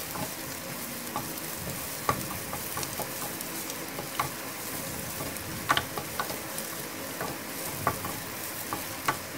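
Sliced onions and dried red chillies sizzling in hot oil in a non-stick frying pan while being stirred with a wooden spatula, which scrapes and knocks against the pan now and then.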